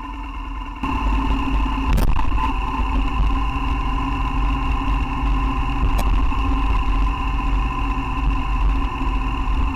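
BMW R1200GS boxer-twin motorcycle engine running under way, with a heavy wind rumble on the handlebar-mounted camera. It gets louder about a second in, and there are two brief clicks.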